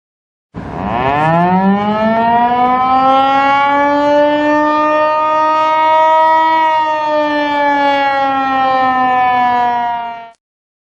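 Outdoor warning siren winding up over about a second and a half, then holding a steady wail that sags slightly in pitch in the second half before cutting off abruptly.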